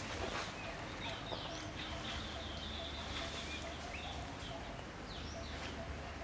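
Birds chirping in short, scattered calls over a steady low hum of outdoor background noise.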